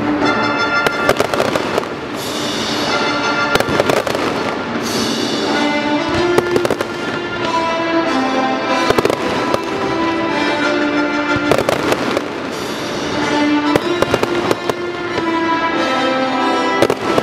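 Aerial fireworks shells bursting overhead in a dense string of sharp bangs, over music with long held notes.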